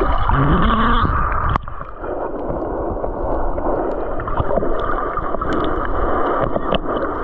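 Sloshing, gurgling shallow seawater heard from just below the surface, muffled and steady, with one sharp knock about a second and a half in.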